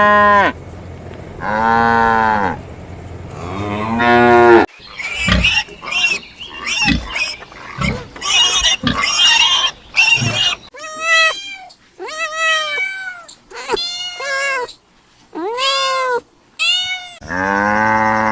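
Cows mooing in long, low calls near the start and again near the end. In between, a run of many shorter, higher calls from another animal, about one a second.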